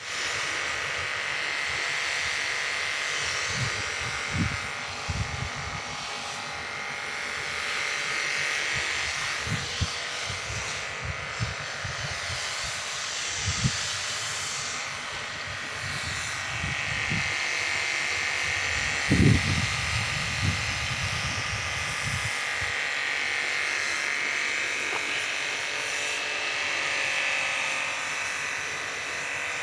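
Pressure washer running steadily, its water jet hissing against the terrace surface as it strips off algae. Scattered low thumps come through in the first two-thirds, the loudest about two-thirds of the way in.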